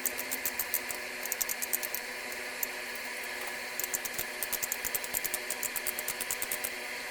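Ratcheting pipe-threading die cutting a thread on a water pipe: the pawl clicks in quick runs of several clicks a second as the handle is swung back and forth, with short pauses between runs.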